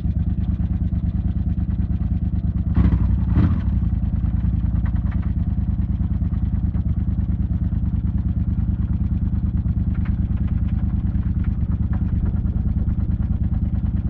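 Yamaha TDM motorcycle's parallel-twin engine running at a steady idle, with an even, fast pulsing beat. Two brief louder bursts come about three seconds in.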